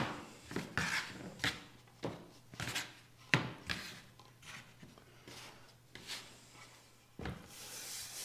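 Small plastic bench risers clacking and sliding on a plywood sheet as they are set in place, and a hardwood cutting board knocked down onto them, a string of light separate knocks. From about seven seconds in, a hand rubs across the board's wooden top.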